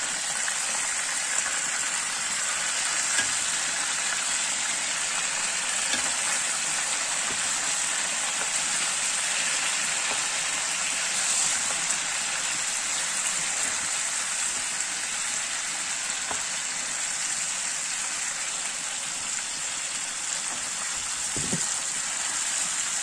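Pieces of meat sizzling steadily as they fry in oil in a large steel pan over a wood fire, with a few faint clicks.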